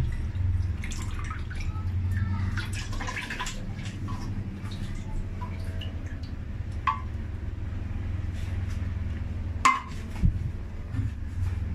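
Milk and coconut milk pouring in a thin stream into a stainless steel pan, splashing and dripping into the liquid already there, over a steady low hum. A sharp knock comes about ten seconds in.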